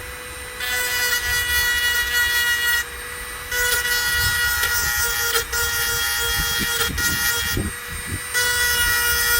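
Power sharpening tool running with a steady whine and grinding along the teeth of a hedge trimmer blade, the sound turning harsher in three stretches of contact with the metal, broken by short pauses between them.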